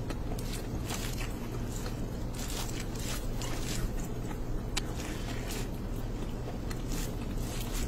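Fingers squishing and mixing rice with curry gravy in a plate, close up: a run of wet, sticky clicks and scrapes over a steady low hum.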